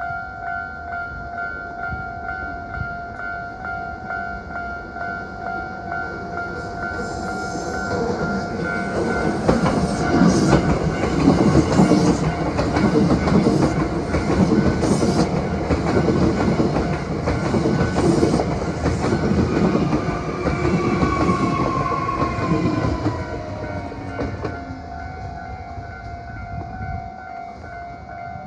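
Hankyu 7300-series electric train passing close by, wheels clattering over rail joints. It builds up about eight seconds in, is loudest for roughly ten seconds, and fades away near the end, with a falling whine as it goes. A steady high ringing tone sounds underneath throughout.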